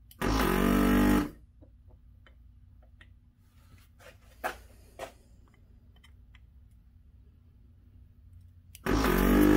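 Hakko FR-410 desoldering station's vacuum pump running in two buzzing bursts of about a second each, one just after the start and one near the end, as the gun sucks molten solder off USB-port pins. Two light clicks come in between.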